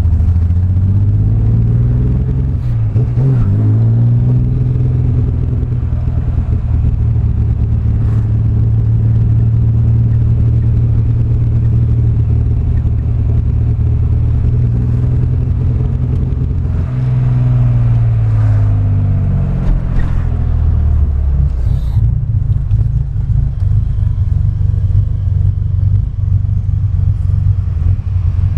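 Chevrolet Caravan's naturally aspirated straight-six, with a loud, deep exhaust note, being revved. It climbs about three seconds in, holds steady at raised revs for roughly thirteen seconds, drops back over a few seconds, then settles into an uneven idle rumble.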